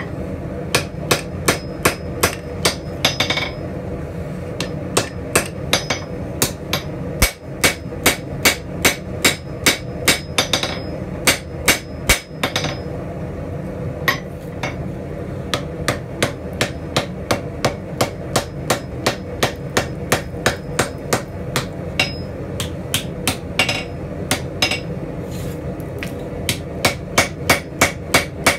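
Straight-peen hammer striking a hot steel spatula blade on an anvil in a steady run of blows, about three a second, with a few short pauses. The blade is being drawn out longer and thinner.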